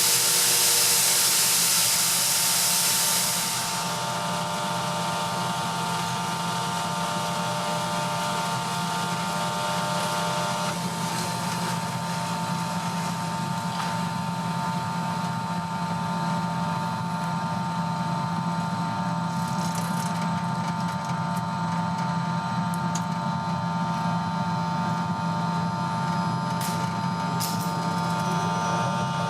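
Ingersoll Rand Nirvana 110 oil-flooded rotary screw air compressor running steadily, with a steady whine of several fixed tones. A loud hiss of air cuts out about three and a half seconds in.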